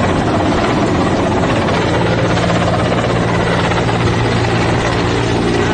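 Helicopter hovering overhead, its rotor and engine running over a steady rushing noise. A steady low hum sets in about two seconds in and holds.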